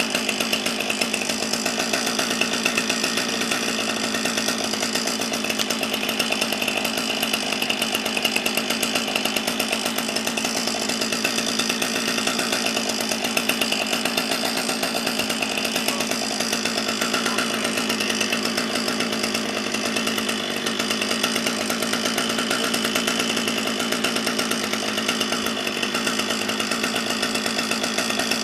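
Chainsaw running steadily, its engine held at one even speed throughout.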